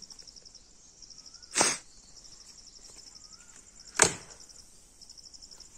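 Two sharp chopping strikes about two and a half seconds apart, a blade cutting into branches, over insects chirping in quick, even pulses.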